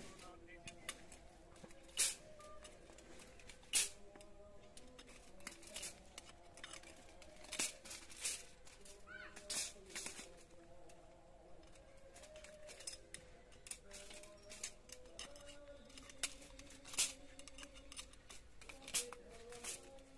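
Irregular sharp metallic clinks and clicks, every second or two, of steel chain-link wire mesh being worked with a hand tool and shifted on a concrete floor, over faint background voices.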